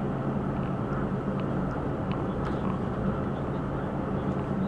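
Articulated lorry's diesel engine running with a steady low hum.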